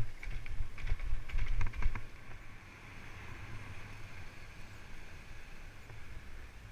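Salsa Mukluk 2 fat bike jolting and rattling over a bumpy paved path for about two seconds. Then its fat tyres roll smoothly on tarmac with a steady hum.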